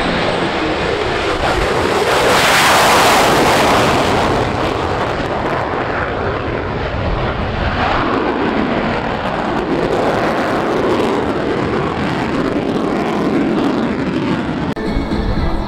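Military jet flying low past the crowd: a loud rush of jet engine noise that swells to its peak about three seconds in, then rumbles on with a slowly wavering, sweeping tone as it passes.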